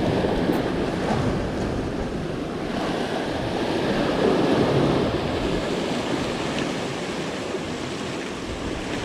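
Ocean surf breaking and washing over a rocky shoreline, with wind buffeting the microphone. The wash swells a little louder about four to five seconds in.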